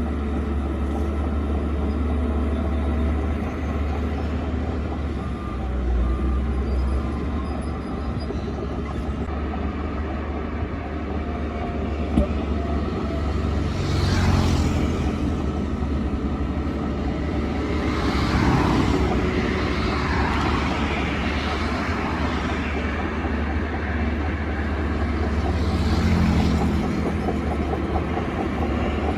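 Shantui DH17C2 bulldozer's diesel engine running with a steady low rumble, swelling louder a few times with higher sounds that rise and fall in pitch as the machine works.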